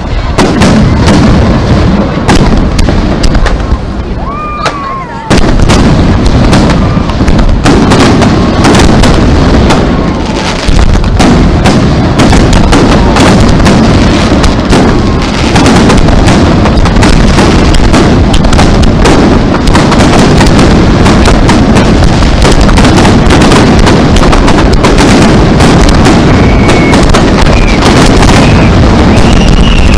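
A rapid barrage of aerial firework shells launching and bursting, the booms and crackles overlapping almost without a break and very loud. There is a brief lull about four seconds in, then the barrage builds back to a continuous wall of bursts.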